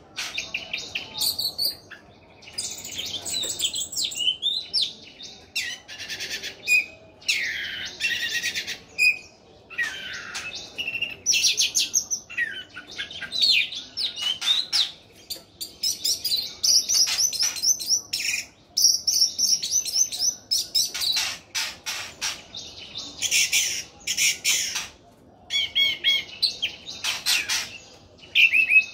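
Caged orange-headed thrush singing vigorously and almost without stopping: fast, varied runs of high whistles, trills and clipped chattering notes, broken by a few short pauses.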